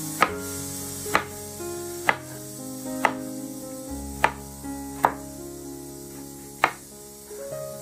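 Kitchen knife slicing through ridge gourd and knocking on a wooden cutting board: seven sharp chops, roughly one a second, over background music.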